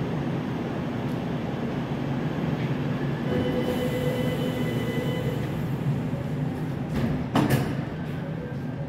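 Seoul Subway Line 9 train standing at an underground platform, its equipment giving a steady low hum; a held tone sounds for about two seconds a few seconds in, and a couple of sharp knocks come near the end.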